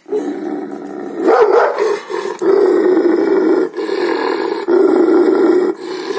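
Gaddi dog (Himalayan sheepdog) growling in long drawn-out stretches, each about a second, about five in a row with short breaks between.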